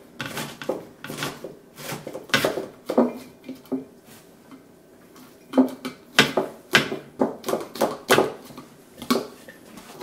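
Shredded cabbage and vegetables pushed through a plastic canning funnel into a glass jar, with irregular clicks and knocks of the funnel against the jar. It goes quieter for a second or two in the middle, then picks up again in a quick run.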